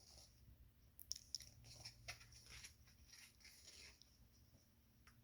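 Near silence with faint paper rustling and a few light clicks from about one to four seconds in: the pages of a picture book being handled and turned.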